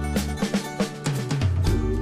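Music with a steady drum-kit beat and sustained bass notes.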